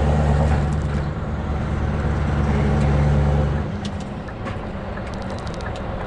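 Scania V8 truck engine heard from inside the cab, pulling with a steady deep drone that drops away about three and a half seconds in, leaving quieter engine and road noise.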